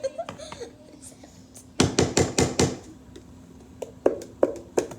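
Repeated knocking of a bottle on a tabletop to get its contents to come out: a quick run of loud knocks about two seconds in, then single knocks at about two or three a second from near the end.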